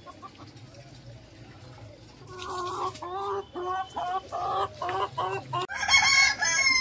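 Chickens clucking: a run of short calls, about three a second, starts about two seconds in and ends in louder, higher-pitched squawks.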